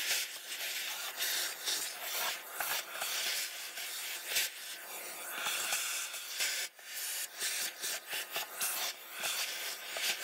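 Hands rubbing and scraping over the amp's wooden speaker baffle, a run of irregular hissing strokes.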